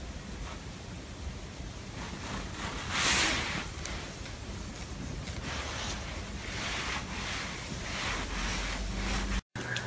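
A hand rubbing a long-haired cat's belly fur: soft swishing strokes, the loudest about three seconds in, with fainter ones later.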